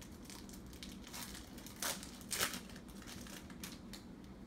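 Packaging of a blaster box of baseball cards being torn open: crinkling wrapper with a few short, sharp rips, the loudest just past the middle.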